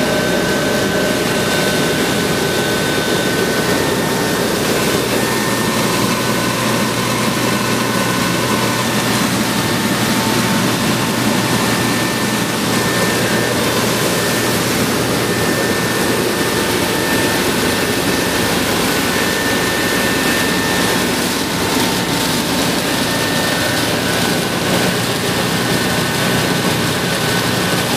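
Rice flour milling machine with an 11 kW motor running and grinding rice into fine flour: a loud, steady, unchanging machine noise with a few faint steady tones above it.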